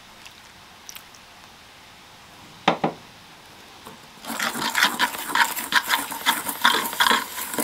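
Wire ball whisk stirring ground spices and warm water into a paste in an enamel bowl, its wires scraping and clinking against the enamel in rapid strokes from about four seconds in. Before that, two sharp knocks a little before the three-second mark.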